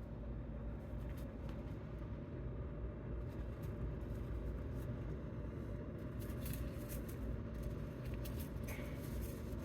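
Steady low rumble inside a car's cabin, with a few faint ticks.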